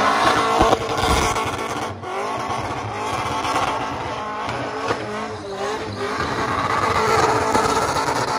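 Supercharged burnout car's engine revving hard, rising and falling again and again, while its rear tyres spin in a smoky burnout.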